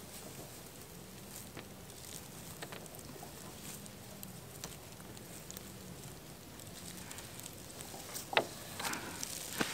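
Faint rustling and crackling of dry grass being handled and stepped in, with a few sharper, louder crunches near the end.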